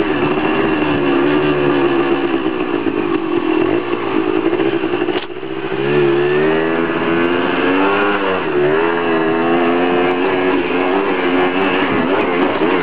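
Dirt bike engine being ridden hard, its note rising and falling with the throttle. About five seconds in the engine note drops out briefly with a sharp click, then climbs again.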